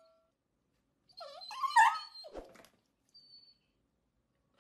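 Yellow Labrador retriever giving a drawn-out whining call that wavers up and down in pitch, starting about a second in, followed by a brief faint high squeak.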